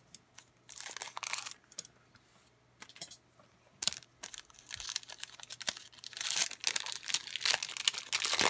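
Plastic trading-card pack wrapper being crinkled and torn open by hand. It comes in irregular bursts of crinkling, brief about a second in, then longer and louder through the second half as the stubborn pack is worked open.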